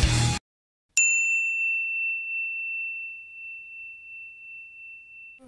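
Rock music cuts off abruptly, then after a short gap a single bright bell-like ding rings out and fades slowly over about four seconds.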